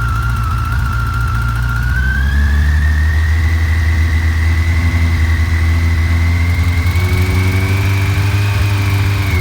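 Yamaha FJR1300 inline-four engine running, its speed raised about two seconds in and held, with a high-pitched whine that climbs with the revs. The owner wonders whether the whine comes from the timing chain.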